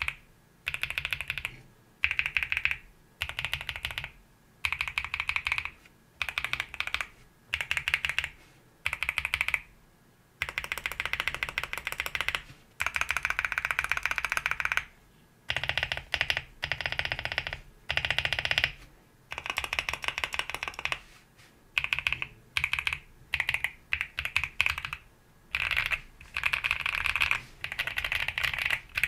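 Mechanical keyboard fitted with Akko Cream Blue V3 Pro tactile switches being typed on in quick bursts of keystrokes with short pauses between them, including one longer run of steady typing about halfway through.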